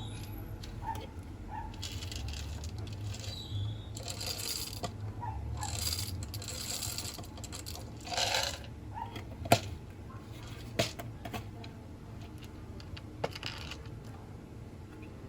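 Light household handling noises: a few sharp clicks and clinks among short bursts of rustling.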